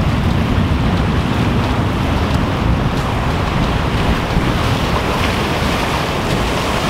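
Steady wind noise on the microphone, heaviest in the low end, over surf breaking and washing against rocks.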